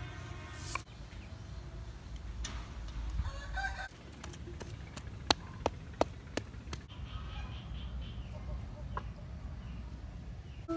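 Chickens clucking, with a rooster crowing about three seconds in. A handful of sharp wooden knocks from a pestle come around the middle.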